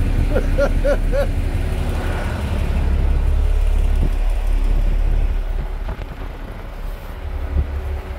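The car ferry's engines run as a steady low drone that eases off after about five seconds. A few short vocal sounds come about a second in, and a couple of thumps near the end.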